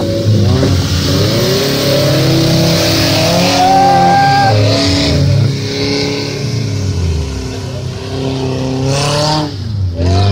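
Off-road 4x4 engine revving, its pitch repeatedly rising and falling as the throttle is worked.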